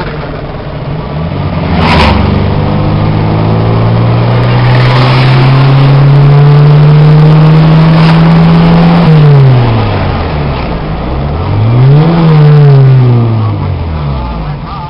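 Maruti Esteem engine breathing through a K&N free-flow air filter and free-flow exhaust, heard from inside the cabin: it pulls up steadily through the revs for several seconds, then drops off sharply, revs up briefly once more and falls away again. A sharp click comes about two seconds in.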